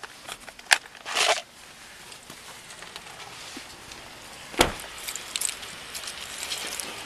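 Handling noise of an officer on the move: a sharp click, a short rustle, then a single loud thump about four and a half seconds in, followed by light jangling and crackling.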